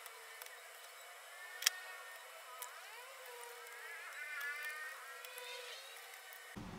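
Engines revving, their pitch rising and falling several times, with no bass, and one sharp tap about a second and a half in.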